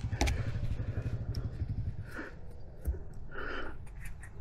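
Eride Pro SS electric dirt bike riding on a trail: low, pulsing drivetrain and tyre rumble with scattered clicks and knocks, easing off about halfway through. The rider puts the loudest part of this drivetrain noise down to the jack shaft, which he describes as a bag-of-rocks sound.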